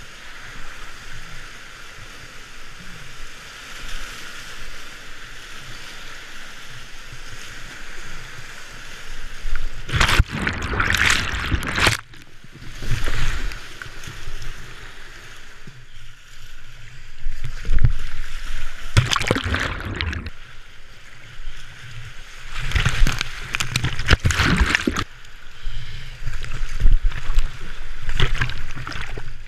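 Whitewater of the flood-high Shenandoah River rushing steadily past a kayak, then, from about ten seconds in, several loud bursts of water splashing over the boat as it runs big waves.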